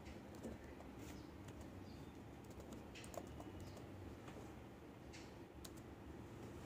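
Faint, irregular keystrokes on a computer keyboard as a word is typed, over a low steady hum.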